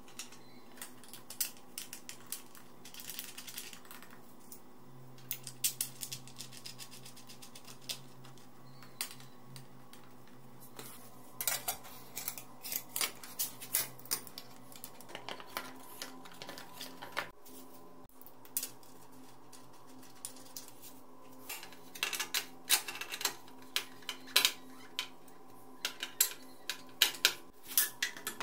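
Small metal parts and hand tools clicking and clinking against a motorcycle frame and its fittings as they are handled and fitted. The clicks come in irregular clusters, busier from about halfway on, over a faint steady hum.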